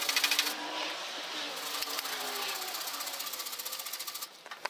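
Stainless steel wire brush scrubbed quickly over an aluminum tube joint, a rapid, steady scratching that pauses briefly near the end. It is cleaning the oxides off the ground-out weld before welding.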